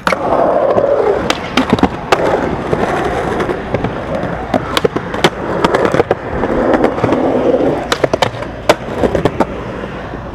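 Skateboard on Bones Swiss bearings rolling steadily over smooth concrete. Many sharp clacks cut through the rolling as the board's tail and wheels strike the ground during flatground tricks.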